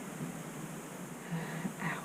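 Quiet room tone, with one brief soft sound from a person near the end.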